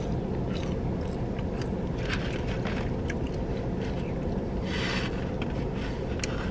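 Close-miked eating sounds: chewing and pulling apart a fried chicken tender, with many small crisp clicks and a brief rustle about five seconds in, over a steady low rumble inside a car.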